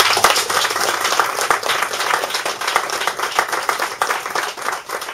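A small audience clapping after a poetry reading, tapering off near the end.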